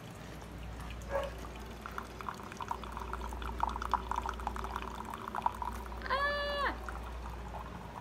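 Single-cup coffee maker brewing: a spitting, gurgling run of fine crackles as hot water sputters through into the cup, starting about two seconds in and fading out around five seconds in. A pet gives one short, high call near the end.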